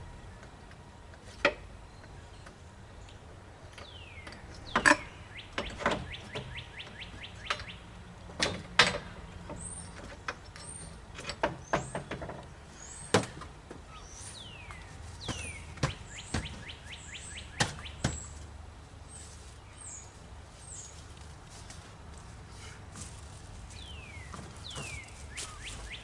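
Scattered knocks and clunks from materials being handled, with a quick rattling run of clicks about six seconds in. Small birds chirp throughout, some calls sweeping downward in pitch.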